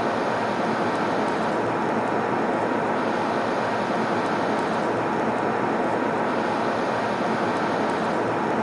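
Airliner cabin noise in flight: a steady, even rush of engine and airflow noise, with a faint steady tone on top.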